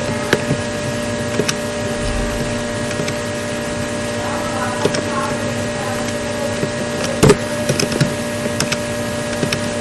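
Steady mechanical background hum with several steady tones in it, broken by a handful of sharp clicks, the loudest about seven seconds in.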